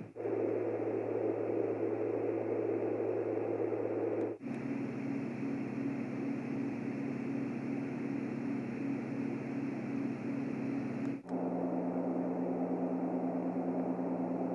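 LectroFan noise machine playing its fan-sound settings: a steady fan-like noise with a low hum. It cuts out for a moment about four seconds in and again about eleven seconds in as it steps to the next fan setting, and each setting has a different hum.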